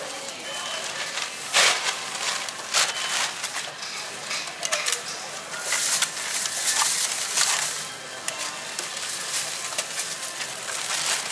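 Thin plastic shopping bag rustling and crinkling in irregular bursts as groceries are packed into it by hand.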